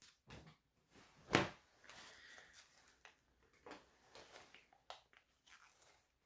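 Clothes being handled: soft, scattered rustling of fabric with a few light knocks, the sharpest about a second and a half in.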